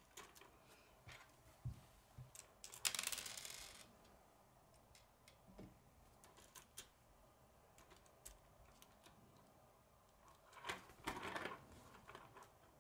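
Small plastic K'nex rods and connectors clicking and rattling faintly as they are handled and snapped together, with scattered single clicks, a brief rustle about three seconds in and a cluster of clicks near the end.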